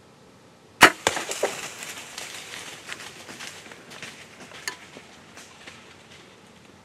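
A single sharp shot at a whitetail buck about a second in, followed by several seconds of crackling and rustling through dry brush and leaves that slowly fades as the hit deer crashes away.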